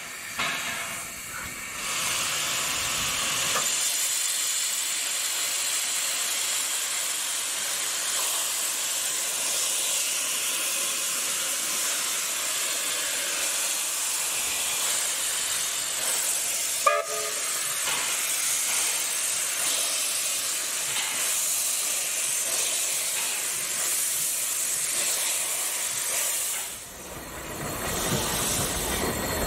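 Steam locomotive W934 blowing off steam with a steady, loud hiss, steam venting from around its cylinders. A brief whistle toot comes about halfway through. Near the end the hiss dips and then returns with a low rumble as the train starts off.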